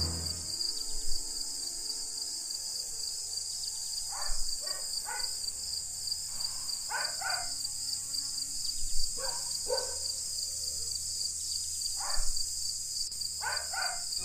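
Eerie night-time sound bed: steady high insect chirping and a low hum, with short harsh bird calls in groups of two or three every few seconds.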